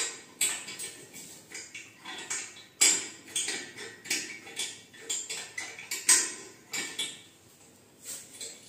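A small metal hand tool clicking and scraping against the ceramic toilet base and the floor tiles while white cement is worked around the pan's base. The sharp clicks are irregular, with louder knocks about three seconds in and about six seconds in, and they thin out near the end.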